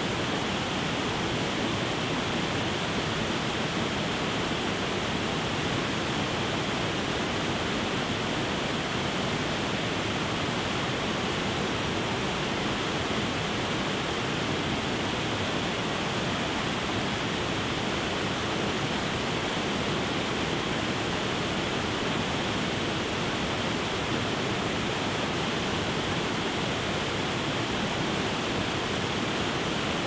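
A short, wide waterfall pouring over rock ledges into a pool, a steady, unbroken rush of water.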